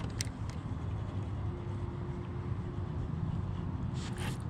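Steady low wind rumble on the microphone over an open lake, with a few light clicks near the start and again near the end.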